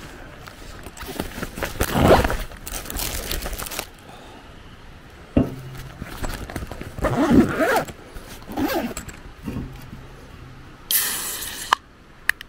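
Nylon backpack rustling and scraping as it is set down and handled, in several irregular bursts. Near the end a zipper is pulled open on a soft cooler bag, followed by a few sharp clicks as a can is drawn out.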